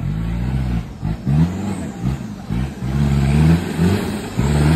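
Engine of a lifted off-road 4x4 revving in repeated bursts, the pitch climbing and dropping again several times. It starts loud and abruptly.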